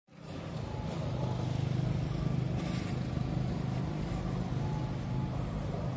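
Steady low engine hum, like a vehicle running.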